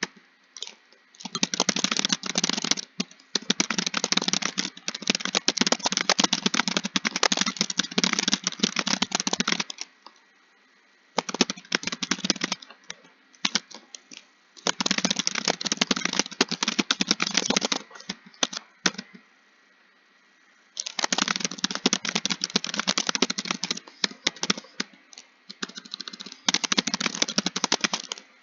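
Computer keyboard typed on in fast continuous runs of keystrokes, broken by a few pauses of one to three seconds.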